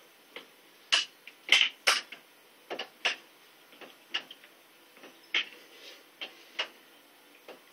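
Irregular sharp clicks and knocks from a doorway pull-up bar shifting against the door frame under a man's weight as he does pull-ups, roughly one or two knocks a second.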